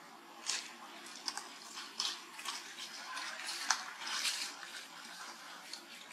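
Black plastic garbage bag crinkling and rustling in irregular crackly bursts as young macaques pull at it and rummage inside.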